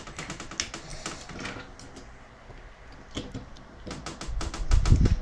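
Toy parts of a Bandai GX-31V Voltes V figure clicking and rattling as the chest piece is pressed and pegged onto the waist, a run of quick small clicks, with a dull handling rumble from about four seconds in.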